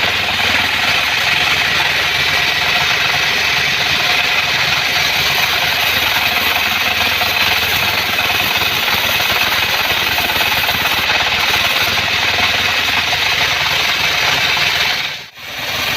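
Portable band sawmill running steadily with a loud mechanical noise that briefly drops out near the end.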